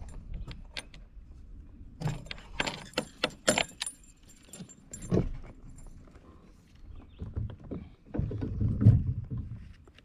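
A hooked smallmouth bass thrashing at a kayak: sharp metallic clinking and rattling from the chatterbait lure for a couple of seconds, then heavy thumps as the fish flops about once it is aboard, the loudest near the end.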